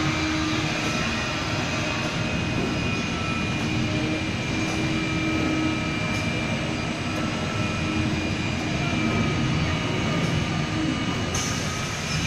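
CNC flatbed car-mat cutting machine running, a steady drone with faint whining tones that come and go.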